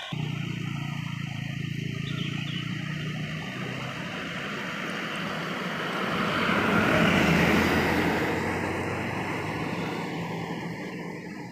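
Heavy road vehicle passing by: a steady low engine hum, then engine and tyre noise swelling to a peak about seven seconds in and fading away.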